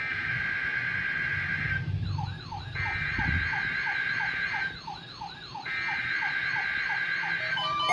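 Several weather alert radios sounding their alarms, set off by the weekly test of the NOAA Weather Radio warning alarm tone. A steady beeping tone sounds for about two seconds at a time with short breaks. Over it run a siren-like tone that falls in pitch several times a second and a fainter, high warbling tone.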